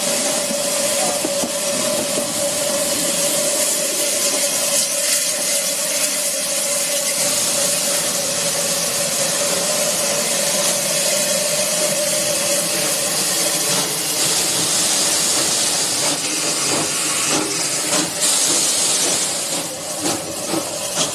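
Steam hissing steadily from Bulleid West Country class steam locomotive No. 34092 as it draws slowly past, with a steady note under the hiss that fades out about two-thirds of the way through.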